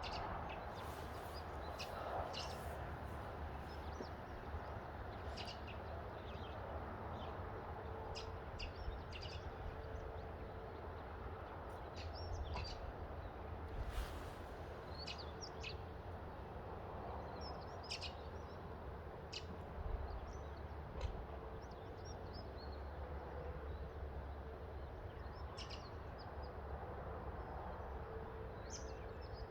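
Birds chirping in short, scattered calls over a steady rural outdoor background, with a low rumble of wind on the microphone and a faint steady hum underneath.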